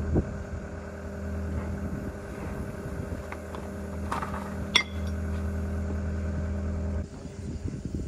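An engine idling with a steady hum, and a couple of sharp clinks about four and a half seconds in. The engine sound stops abruptly about seven seconds in.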